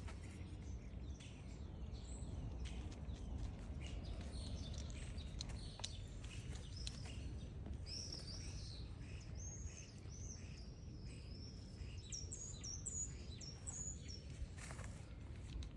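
Small birds chirping: a run of short, high, arching chirps, thickest in the second half, over a steady low rumble of outdoor background noise.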